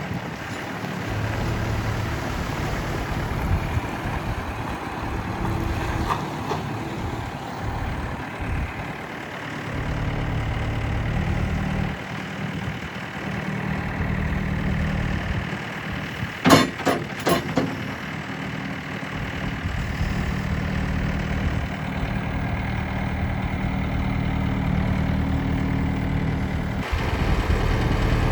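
Gehl R190 skid steer loader's diesel engine running, its speed rising and falling several times. A little past halfway there is a quick series of four sharp knocks.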